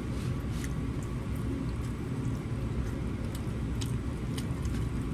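A steady low background rumble, with a few faint clicks of a metal fork against a bowl of pasta.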